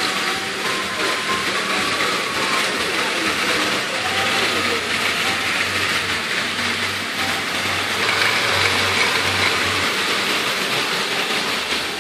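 Several battery-powered Tomy Plarail toy trains running on plastic track, making a steady whirring hiss of small motors and wheels. A low hum joins for several seconds in the middle.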